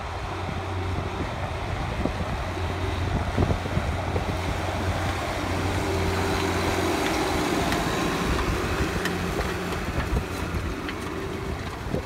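New Holland T8050 tractor's six-cylinder diesel engine running steadily under load as it pulls a disc cultivator through the soil, growing louder as it passes close about halfway through. Wind buffets the microphone.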